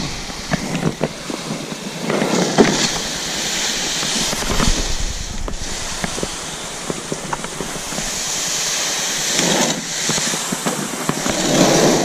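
Loaded canoe hull dragged over sand: a scraping hiss in several pulls lasting a second or two, with short pauses and occasional knocks between.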